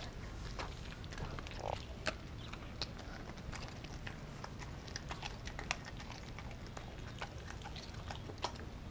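Dog gnawing at a frozen raw turkey steak: irregular clicks and crunches of teeth on the frozen meat, several a second.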